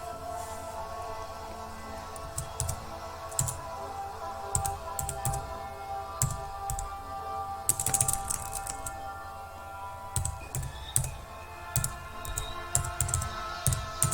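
Typing on a computer keyboard, irregular clusters of key clicks, entering a login name and password, over steady background music.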